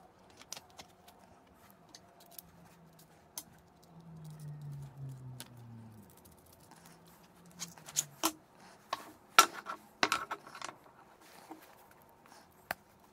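Small metal parts clicking and clinking in the hands as a washer and nut are fitted onto a threaded rod through a stack of wooden discs, with a cluster of sharper clicks and knocks about eight to eleven seconds in. A faint low hum slides down in pitch around the middle.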